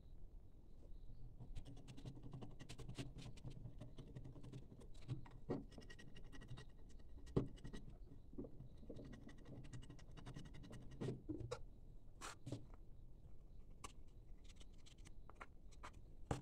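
A small blade scraping and tapping on a sheet of glass while it spreads and mixes glue, in an uneven run of light scratches with a few sharper taps.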